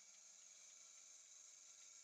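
Near silence: faint, steady high hiss of room tone.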